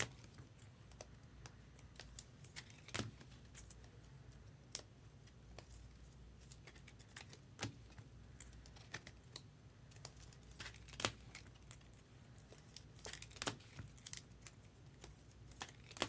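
Faint, irregular clicks and taps with some crinkling of wrappers, from trading card packs and plastic card cases being opened and handled.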